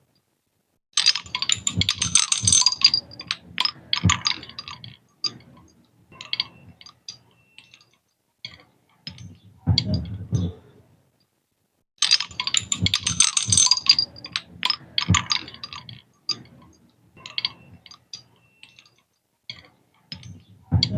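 Homemade seashell mobile: the shells clink and clatter against one another in two dense jangling bursts, about a second in and again about twelve seconds in, with scattered single clicks between.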